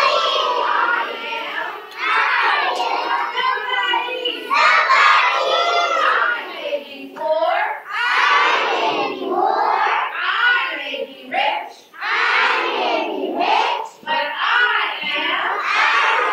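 A group of young children chanting and singing together in unison, loudly, in phrases of about two seconds with brief breaks between them.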